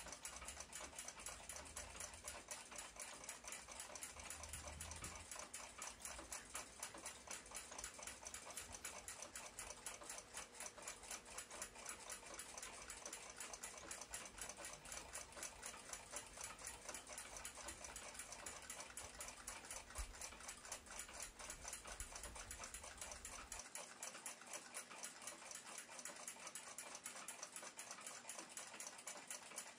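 Freshly cleaned and oiled 1890s German pendulum wall clock ticking steadily, its Graham escapement beating at an even rhythm.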